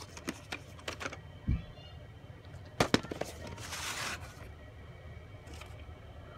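Plastic VHS cassette and case being handled: a few sharp clicks and knocks, a low thud, and a pair of louder clacks about three seconds in, followed by a brief rustling scrape.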